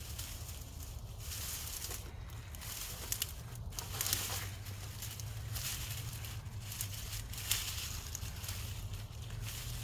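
Hands digging and rustling through loose, damp soil and sweet potato vines in a fabric grow bag, with irregular scraping and crumbling and one sharper click about three-quarters of the way in.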